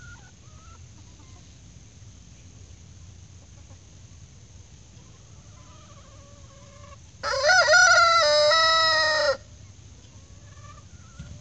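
A rooster crows once, a single crow about two seconds long, with soft clucking calls from the flock before and after.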